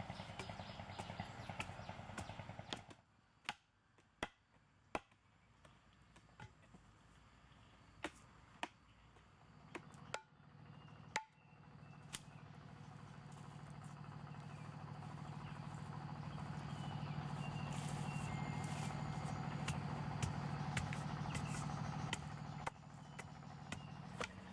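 A digging tool striking dry, hard soil in a handful of sharp knocks a second or so apart. From about halfway in, a steady low hum rises and holds.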